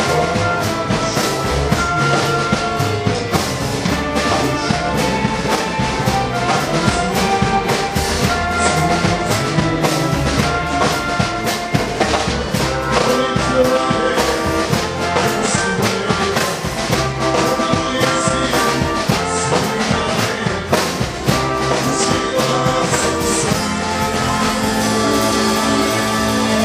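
Orchestra of young players playing live: flute, violins and brass carry the melody over a regular percussion beat.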